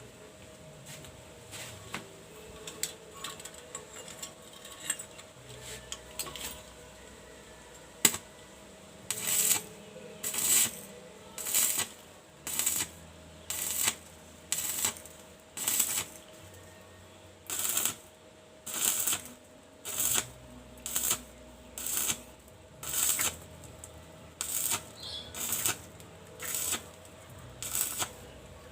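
A few light clicks, then short rasping, metallic strokes repeated about once a second.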